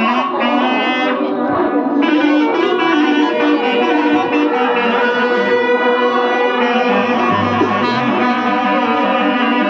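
Loud band music: a reed or brass wind instrument plays a melody of long held notes over a bass line, with deeper bass notes coming in about seven seconds in.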